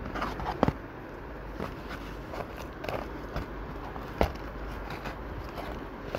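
Crisp fried-chicken coating crackling as fingers handle and press it: scattered short crunches and clicks, the sharpest about half a second in and again about four seconds in, over a steady background noise.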